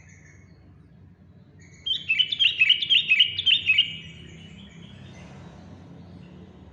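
Sooty-headed bulbul (trucukan) singing a loud, fast phrase of quick notes for about two seconds, starting about two seconds in. This is the fiery 'pedes' song that bird keepers prize. Faint short calls come before it.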